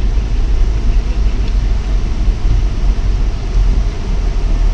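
Steady low rumble of a vehicle driving along the beach sand.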